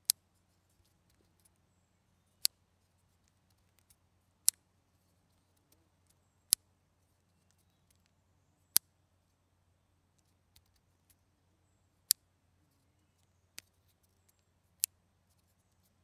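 Spring clothespins snapping, about eight sharp single clicks spaced one to three seconds apart, one of them softer.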